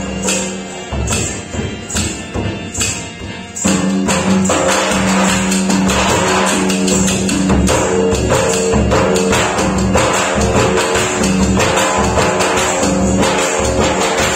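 Live Rajasthani folk dance music: a large red dhol is beaten with a stick in a steady rhythm under a held melody and drone. About three and a half seconds in, the music grows fuller and louder.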